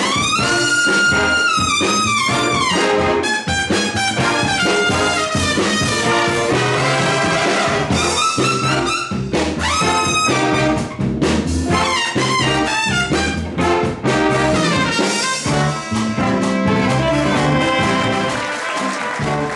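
Jazz big band playing, with two trumpets out front over saxophones and rhythm section. The trumpet line sweeps up in pitch at the start and again about ten seconds in.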